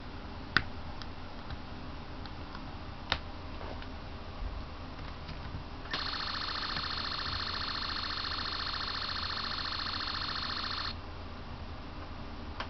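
Sound-effects chip playing an electronic alarm-like ringing tone for about five seconds, starting about six seconds in and cutting off suddenly, triggered by the Sun SPOT's light sensor detecting darkness. Two sharp clicks come before it.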